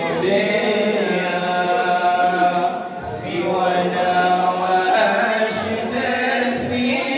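Male voices chanting verses into microphones, in long held notes that rise and fall.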